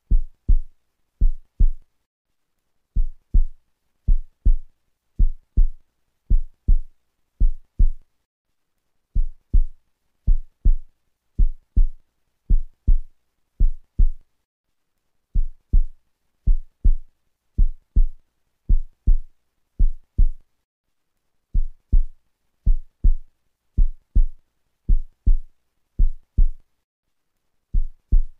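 Looped heartbeat sound used as a backing track: pairs of low thumps, lub-dub, in a steady rhythm, breaking off briefly every six seconds or so.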